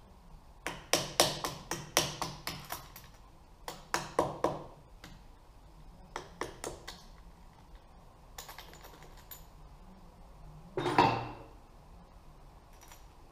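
Light, sharp taps of a small soft-faced mallet on the camshaft bearing caps of a Honda CBX six-cylinder head, knocking them loose for removal: a quick run of taps in the first few seconds, a few more around six seconds, and one longer, louder knock near the end.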